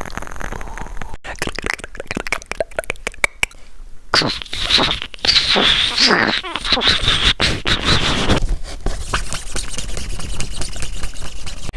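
Improvised foley sound effects: a rapid run of clicks and scraping noises, with a squeaky, wavering noise from about four seconds in until a little past eight seconds.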